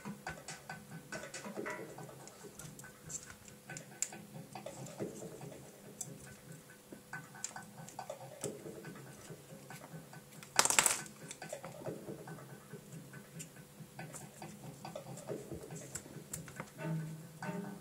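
Small irregular clicks and taps of hand work on small model-helicopter parts, with one short, loud rasp just past the middle.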